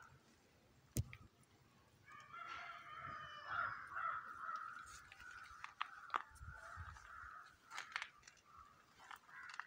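A rooster crows once, a long call starting about two seconds in, with fainter bird calls after it and a few sharp clicks.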